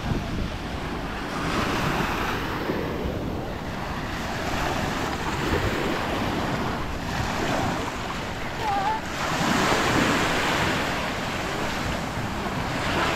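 Small waves breaking and washing up a sandy beach, the surge swelling every few seconds, with wind rumbling on the microphone.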